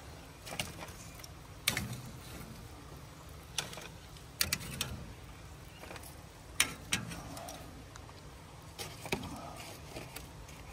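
Metal tongs clacking against a charcoal grill's grate as pieces of jerk chicken are lifted off, a sharp click every second or two, some in quick pairs.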